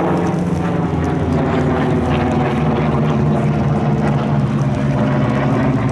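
A steady engine drone with an even, multi-pitched hum that holds level throughout.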